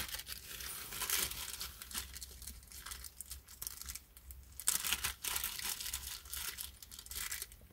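Plastic packaging crinkling and rustling in irregular bursts as small parts are rummaged through, with a short lull about four seconds in.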